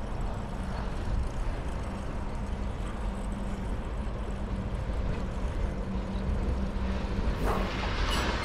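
A steady, low engine-like hum with an even rumble underneath, and a rush of hissing noise swelling near the end.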